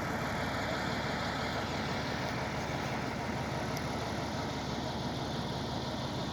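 An engine idling steadily and evenly, with no change in speed.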